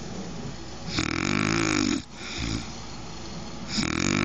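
A woman snoring: one pitched snore about a second long, starting about a second in, and the next starting near the end, about three seconds apart.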